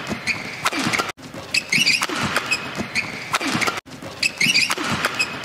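Badminton doubles rally on an indoor court: sharp racket strikes on the shuttlecock and high squeaks of players' shoes on the court surface, over a steady arena hum. The sound drops out briefly about every three seconds.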